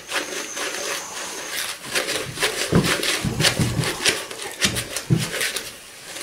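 A spatula scraping and clicking against a mixing bowl in quick, uneven strokes while stirring stiff, crumbly biscuit dough, which may hold too much flour.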